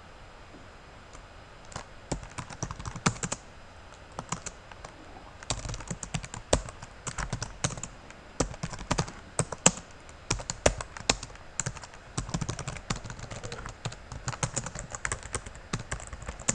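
Typing on a computer keyboard: irregular runs of quick keystrokes, starting about two seconds in.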